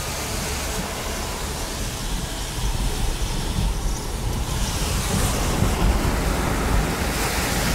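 Wind noise on the microphone mixed with tyre hiss from a car driving on rain-soaked pavement during a storm: a steady rushing that grows a little louder about three seconds in.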